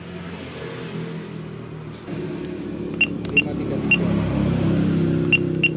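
Keypad beeps of a handheld EDC card terminal as an account number is keyed in for a bank transfer: six short, high single beeps, three spaced about half a second apart, then a quicker run of three near the end. Under them a low steady rumble grows louder about two seconds in.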